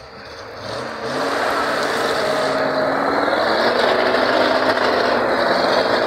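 GAZ-66 truck's engine working under load as the truck crawls through a muddy ditch. It rises in pitch and loudness about a second in, holds high, and eases off at the end.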